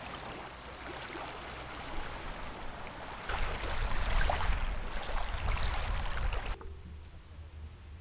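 Lake water lapping with wind rumbling on the microphone, a steady rushing hiss that grows louder midway, then drops suddenly to quieter ambience about six and a half seconds in.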